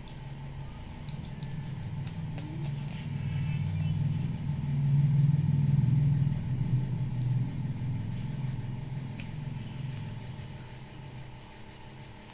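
A low, engine-like rumble that swells to its loudest about halfway and then fades, with a few faint clicks in the first few seconds.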